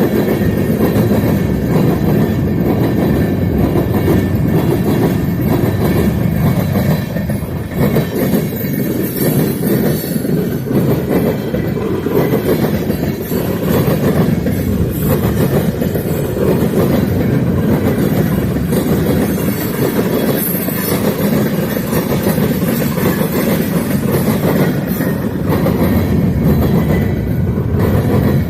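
Freight train rolling past, a steady loud rumble of wheels on rail with clickety-clack from the cars.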